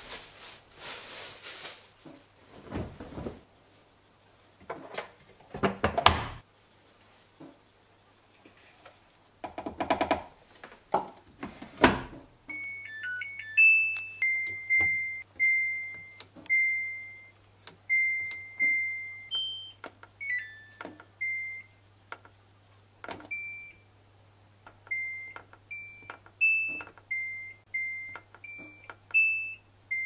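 Front-loading washing machine, a Samsung Eco Bubble: several knocks and rustles in the first twelve seconds as the clothes are pushed in and the door is shut. Then a faint steady hum sets in with a short run of notes of different pitches, and the control panel gives short beeps, one per click, as the programme dial is turned and the option buttons are pressed.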